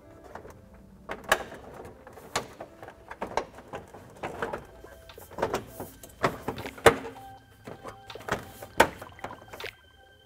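Plastic grille assembly being pressed onto a Toyota Tacoma's front end: irregular plastic clicks, knocks and rubbing as its clips snap into place, the loudest knock about seven seconds in.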